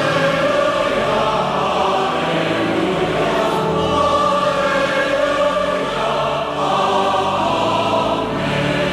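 Choir singing, with held chords that change every second or two.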